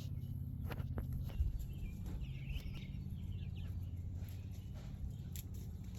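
Backyard hens making soft, high wavering calls about two to three seconds in, among a few light clicks over a low steady rumble.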